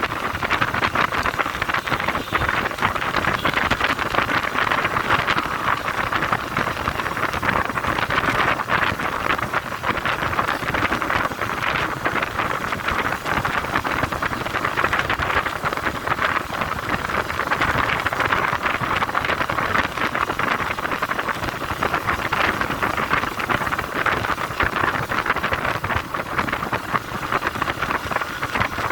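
Steady travelling noise of a vehicle moving along a road, with wind on the microphone and frequent small knocks and rattles.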